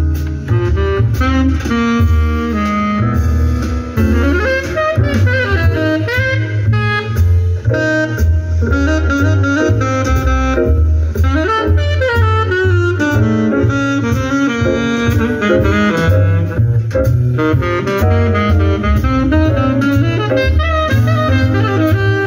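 Instrumental music, a melody over a steady bass line, played back through a Marantz PM8000 integrated amplifier and loudspeakers as a listening test of the amplifier.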